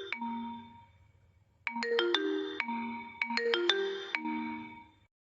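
Vivo phone message tone: a short melody of quick pitched notes. One play dies away at the start, then after a brief pause it plays twice more, back to back, and fades out.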